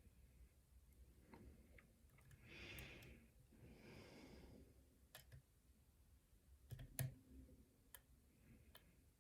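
Faint, scattered clicks of a lock pick and tension wrench working the pins of a pin-tumbler lock, the loudest about seven seconds in. Two soft breaths, in and out, come a few seconds in.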